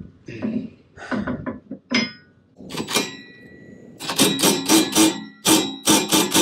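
Steel hitch parts and tools clanking, then a quick run of about eight loud metal strikes, roughly three a second, each ringing on after the hit.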